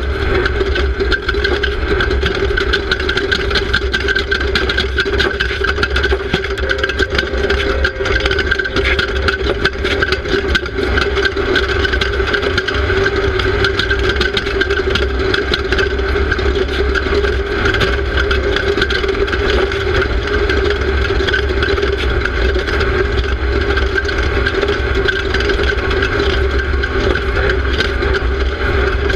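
Off-road race car's engine running hard at a steady pitch, heard from a camera mounted on the car, over a heavy rumble of tyre and wind noise with frequent rattles and knocks.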